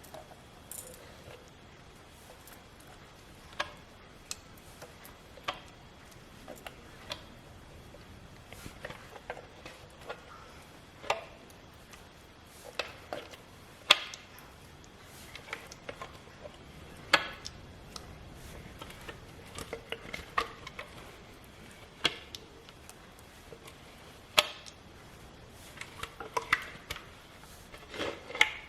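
A utensil knocking and scraping against a mixer-grinder jar as thick ground rice batter is scooped out into a container: scattered sharp knocks a second or two apart.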